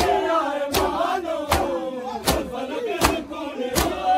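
A crowd of men chanting a Saraiki noha together, with sharp, evenly timed strikes of unison chest-beating (matam) landing about every three-quarters of a second.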